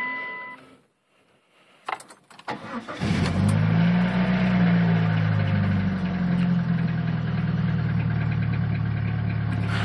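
A 1997 Plymouth Breeze's 2.0-litre four-cylinder engine cold-started: a click, a short crank about two and a half seconds in, then it catches and runs at a fast idle that eases down to a steady idle. A dashboard chime tone fades out at the very start.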